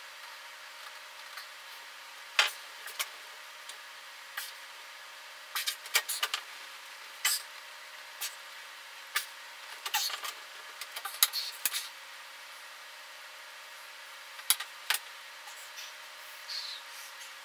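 A person shifting on a padded leg-stretching machine: scattered short clicks, creaks and clothing rustles at irregular intervals, over a faint steady hum.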